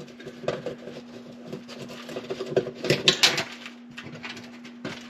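Light clicking and scratching from handling the broken oven heating element and its wiring, with a cluster of louder clicks about three seconds in, over a faint steady hum.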